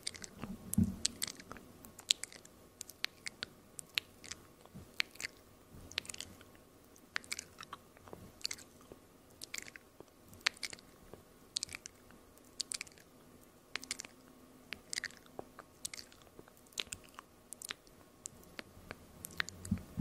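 A woman's close-miked ASMR mouth sounds, with no talking: sharp, irregular lip and tongue clicks and pops, a few a second.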